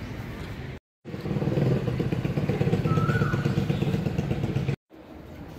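A motorcycle engine running close by, loud and steady for about four seconds, starting and stopping abruptly.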